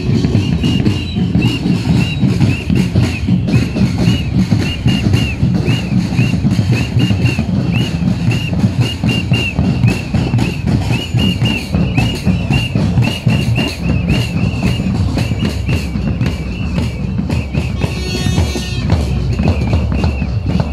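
Music with a steady drum beat. A brief high-pitched sound comes near the end.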